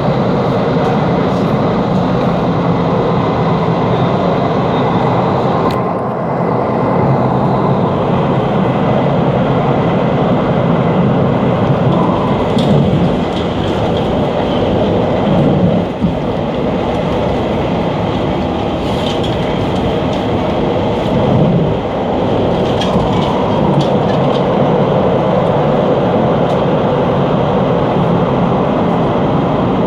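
Steady loud running noise of a Puyuma Express (TEMU2000 tilting electric multiple unit) heard in the gangway between two cars while underway: rumbling wheels on rail with scattered sharp clicks and rattles.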